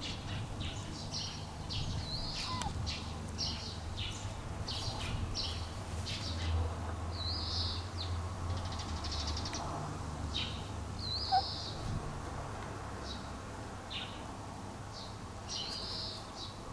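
Small birds chirping in many short, high calls repeated every half second or so, over a low steady rumble.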